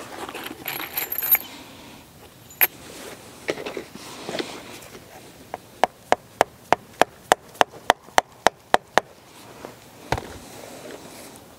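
Rubber mallet tapping a staple into a tree trunk: an even run of about a dozen sharp taps, about three a second, after some handling noise.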